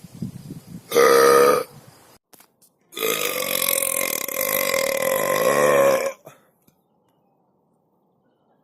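Two loud human burps: a short one about a second in, then a long, drawn-out belch lasting about three seconds.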